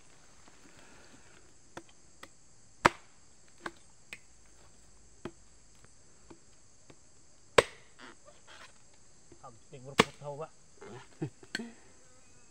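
Bolo knife chopping into young coconuts: a series of sharp, irregular strikes, the loudest about three seconds in, halfway through and about ten seconds in. A steady high buzz of insects runs underneath.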